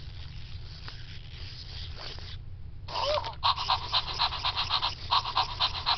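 Zoomer robot toy dog making electronic sounds through its speaker: a faint hiss at first, then after a brief pause a short whine followed by a fast, even pulsing of about six or seven beats a second.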